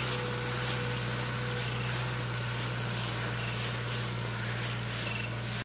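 Vehicle engine running steadily while on the move, a constant low hum under road and wind noise.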